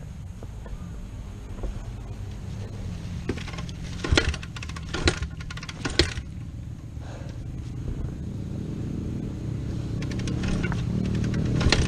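Honda dirt bike engine running at low revs, with a few sharp knocks about four to six seconds in; the engine gets steadily louder toward the end.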